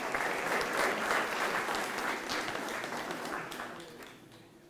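Audience applauding, fading away over the last second or so.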